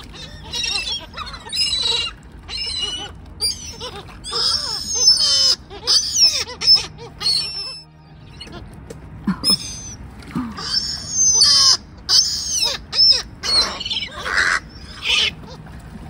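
A flock of hungry gulls crowding for food, calling over and over in high, overlapping cries, with a short lull a little past halfway.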